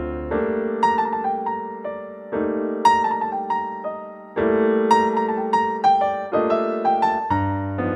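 Background piano music: a slow electric-piano melody of single struck notes over held chords.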